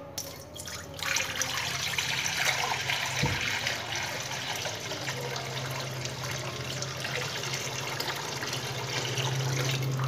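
Water poured in a steady stream into an empty metal kadai, splashing as the pan fills. The pouring starts about a second in.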